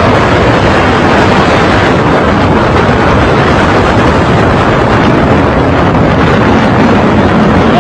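Loud, steady rush of wind and road noise buffeting a phone microphone in a vehicle travelling fast on a highway.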